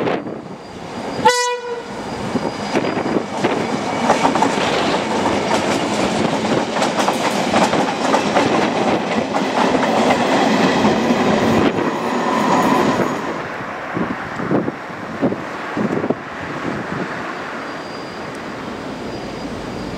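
Irish Rail 071 Class diesel locomotive gives one short horn toot about a second in, then passes close: engine noise and the wheels of the train clattering on the rails, loud for about ten seconds. The noise drops off sharply after about thirteen seconds, leaving the train's quieter, distant sound.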